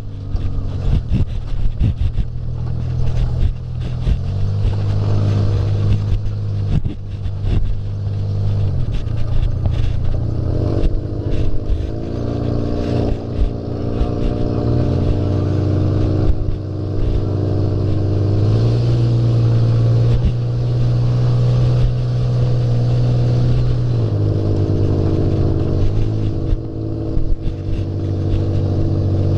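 Off-road buggy engine running under way, its pitch stepping up and down several times as the throttle changes, with frequent knocks and rattles throughout.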